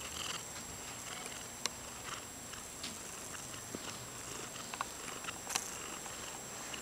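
Domestic cat purring faintly right at the camera's microphone, with scattered small clicks and rubbing as it presses against the camera.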